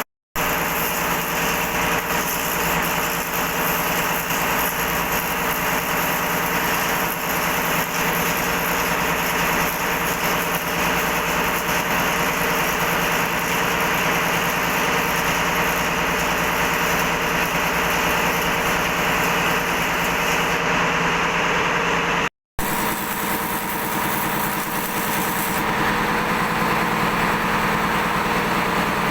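Steady drone of running machinery with a dense hiss over it, unchanging except for a brief cut to silence about 22 seconds in.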